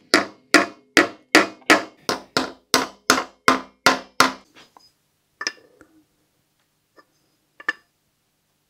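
Wheel weight hammer tapping a clip-on balance weight onto the rim flange of a steel car wheel: about a dozen quick metal-on-metal strikes at roughly three a second, stopping a little past four seconds in. A few lighter, scattered knocks follow.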